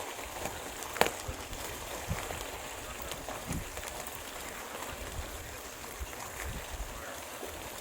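Wind buffeting the microphone with a low, uneven rumble over a steady hiss of motion noise during a ride, and one sharp click about a second in.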